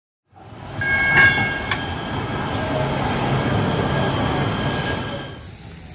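Train in motion heard from inside the car: a steady rumble of wheels on track, with a brief high-pitched ringing squeal about a second in. The sound fades down near the end.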